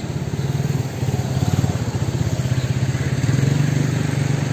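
A vehicle engine idling close by, a steady low hum with a rapid pulse that grows a little louder about a second in.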